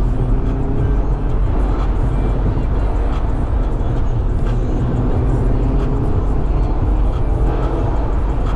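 Mazda MX-5 roadster driving: a steady engine drone over heavy road rumble, with the engine note rising and falling gently as speed changes.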